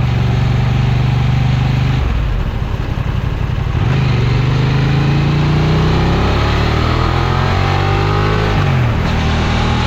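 Honda Transalp XL750's 755 cc parallel-twin engine running steadily. From about four seconds in its revs climb, and the pitch drops suddenly near the end.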